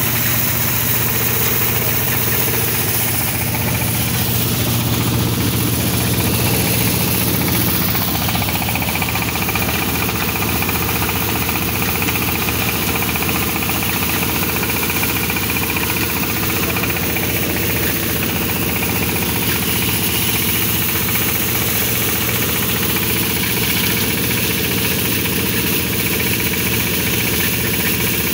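Engine-driven grain thresher running at a steady speed while rice stalks are fed into its threshing drum, giving a continuous engine drone with a dense rushing hiss over it.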